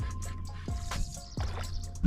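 Background music with a steady beat and a deep, sustained bass.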